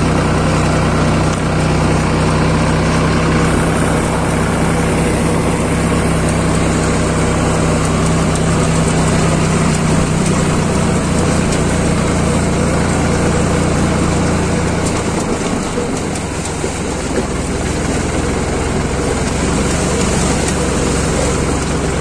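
Farm tractor engine running steadily as the tractor drives along a muddy dirt track. The engine note settles lower and a little quieter about two-thirds of the way through.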